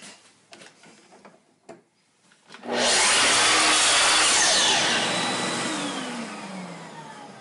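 A few light handling clicks, then about three seconds in a Makita sliding miter saw starts up and its blade is brought down through a wooden board to cut off a segment. The saw's noise then fades as the blade winds down with a falling whine.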